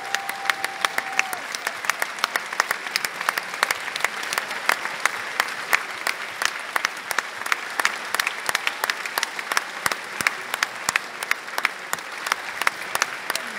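Large theatre audience applauding steadily, a dense wash of clapping with sharp individual claps close by standing out.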